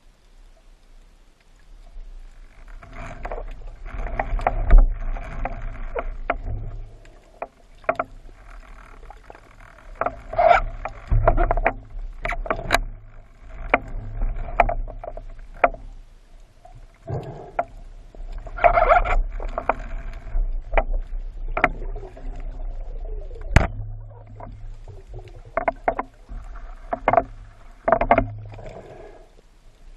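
Underwater swimming noise of a spearfisherman: muffled swishing and rushing of water in bursts of a few seconds, with many sharp clicks and knocks in between and a low rumble underneath.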